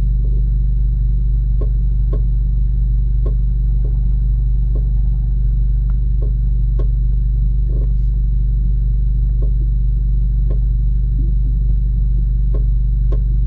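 Honda Accord standing still with its engine running, giving a steady low hum, while the front suspension clicks repeatedly, about once a second, as the steering wheel is turned left and right. The clicking comes from a worn driver's-side front strut bearing with too much play.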